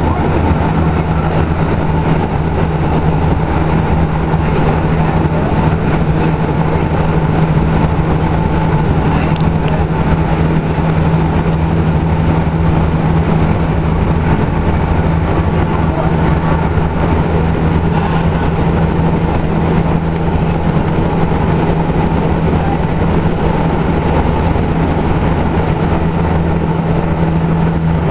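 Running noise of a 2011 Kinki Sharyo light rail vehicle heard from inside the car while under way: a steady, unchanging noise with a constant low hum.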